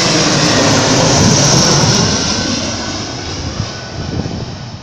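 Airbus A321 twin-engine jet passing low overhead on final approach, a loud rushing engine noise that is strongest over the first two seconds and then slowly fades as it moves away.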